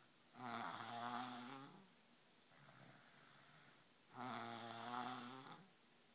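A three-year-old child snoring loudly: two long, pitched snores, each about a second and a half, about four seconds apart, with quieter breathing between them.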